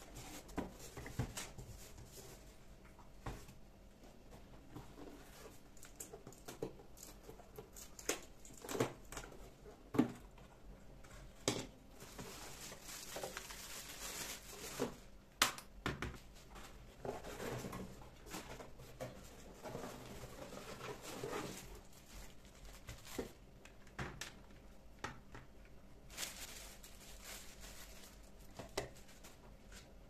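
Household handling sounds: scattered light knocks and clicks, with stretches of rustling and crinkling.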